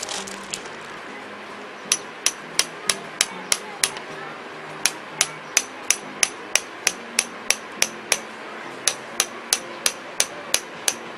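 Hammer driving a tent peg into the ground: sharp strikes about three a second, in three runs with short pauses between them.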